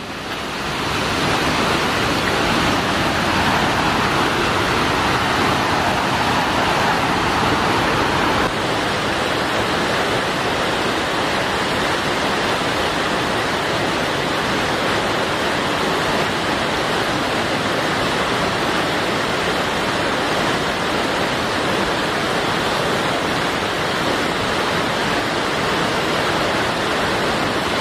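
Steady rushing roar of a nearby waterfall, loud and unbroken; it dips slightly and turns a little duller about eight seconds in.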